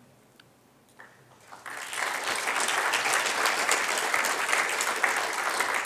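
Audience applauding, starting about two seconds in after a moment of near quiet, then holding steady as many hands clap at once.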